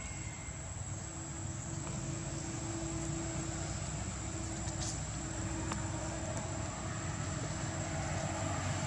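Steady low rumble and hum with a thin high whine over it, and a few faint clicks about five seconds in.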